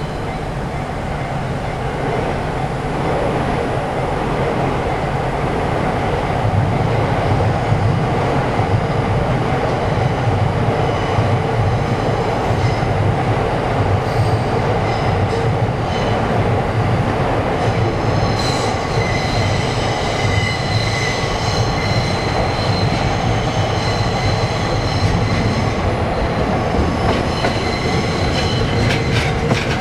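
Train running past on the rails, a steady rumble that builds over the first few seconds. High-pitched wheel squeal joins about halfway through and grows stronger. Near the end come sharp clicks of wheels over rail joints.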